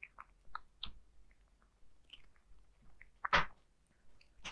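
A cat crunching dry kibble, a scatter of irregular crisp crunches, with one much louder sharp noise about three and a half seconds in.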